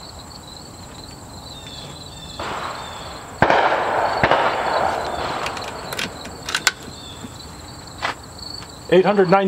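A single shot from a .25-calibre PCP air rifle: one sharp crack about three and a half seconds in, followed by a couple of seconds of fading noise.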